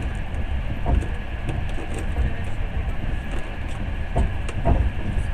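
Passenger train running, heard from inside the carriage: a steady low rumble of wheels and car body, with a few short knocks about a second in and twice near the end.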